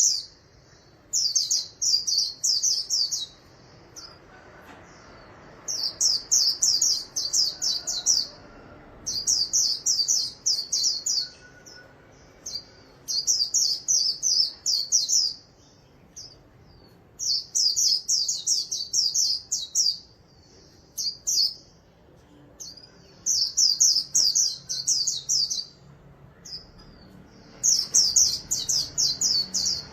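White-eye singing: phrases of rapid, high-pitched twittering notes, each lasting about two seconds, repeated about seven times with short pauses between.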